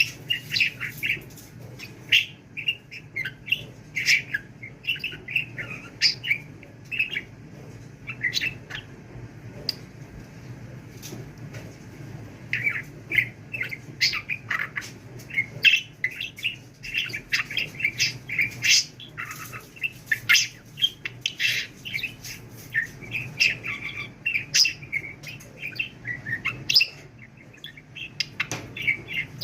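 Budgerigar chattering in a rapid run of short chirps and warbles, with a quieter spell about ten seconds in.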